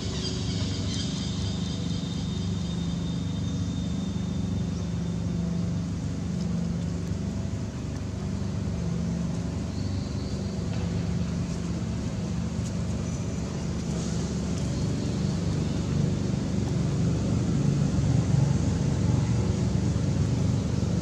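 A steady low rumble with a constant hum, like a motor running, growing a little louder over the last few seconds.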